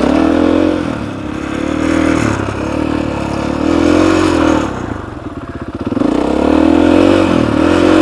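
KTM 500 EXC single-cylinder four-stroke dirt bike engine under load, with the throttle opened and closed repeatedly as it climbs over loose dirt mounds. The revs rise and fall several times and drop to a low, lumpy rev for about a second midway before picking up again.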